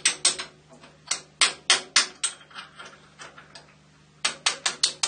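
Sharp, irregular metal-on-metal taps and clicks on a steel lathe gib clamped in a machine vise, as it is worked to jar loose a brass gib-lock piece stuck in it. About a dozen taps come in clusters, with a lull in the middle.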